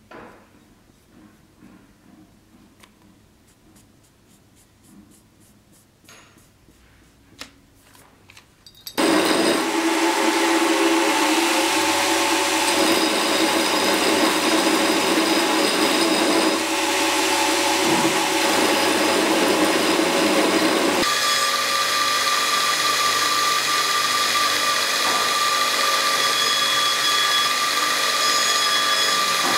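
Belt grinder running, with a small metal scabbard fitting held against the abrasive belt and ground. The steady grinding noise starts abruptly about nine seconds in and changes in tone about twenty-one seconds in. Before it there are only faint clicks and taps from handling the part.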